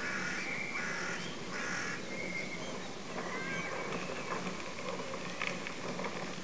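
Birds calling: three harsh, rasping calls in the first two seconds, then a few thin, rising and falling whistled notes, over a steady low hum.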